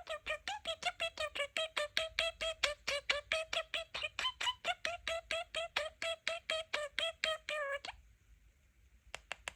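Pet budgie mimicking an electronic beeper: a fast, even run of identical beeps, about six a second, that stops about eight seconds in. A few faint clicks near the end.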